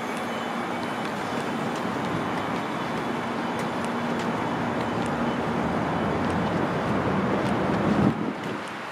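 Steady outdoor urban background rumble with a faint hum. It grows gradually louder, then drops off abruptly near the end.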